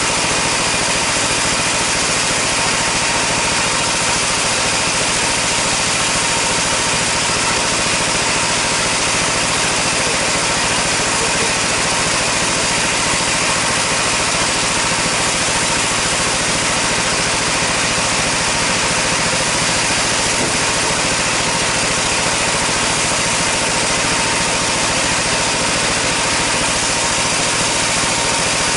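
Sawmill band saw idling: a constant, loud machine hum with steady tones, running free before any cut begins.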